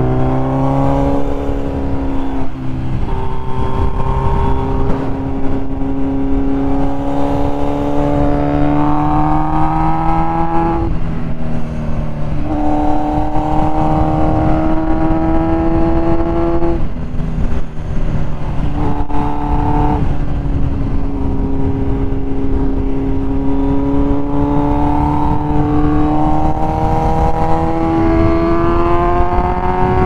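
Kawasaki Z900 inline-four motorcycle engine under way, heard from on the bike: the engine note climbs steadily under throttle and drops back sharply several times, over a low rush of wind and road noise.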